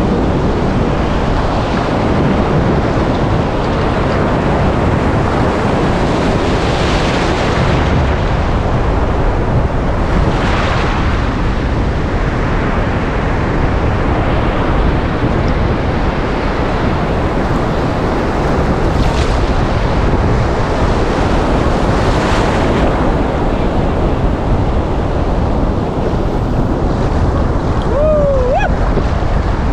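Shallow surf washing up over the sand around the microphone, with heavy wind noise. Several waves wash in louder than the rest, and near the end there is a brief gliding call.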